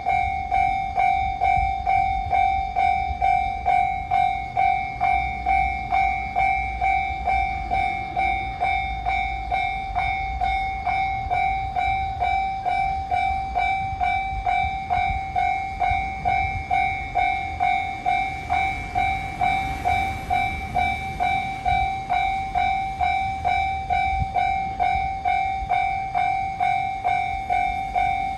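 Japanese railway level-crossing alarm, the electronic JR-type warning tone from the crossing's speaker, sounding a single high bell-like tone struck about twice a second to warn of an approaching train. It turns slightly quieter about two-thirds of the way through, which fits the JR control that lowers the alarm as the train nears the crossing.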